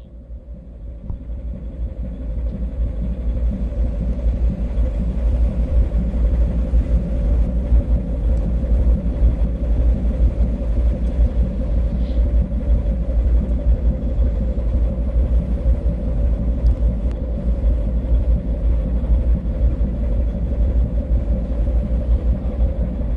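Ship's engine running steadily at sea under a heavy, fluctuating rumble of wind on the microphone; the sound swells over the first few seconds and then holds.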